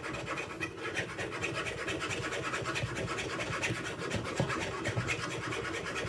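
Metal spoon scraping and rubbing soaked banana pulp against a stainless steel mesh sieve, pressing the liquid through. It is a continuous scraping made of many quick strokes.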